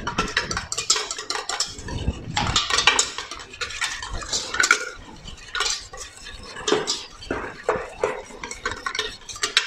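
A utensil stirring a raspberry meringue mixture in a stainless steel bowl over a bain-marie, with irregular scraping and clinking against the metal as the egg white mixture is warmed to about 40 °C.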